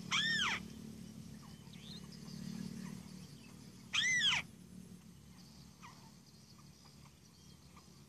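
White-browed crake calling twice, about four seconds apart. Each call is a loud half-second note that rises and falls, with faint short chirps between.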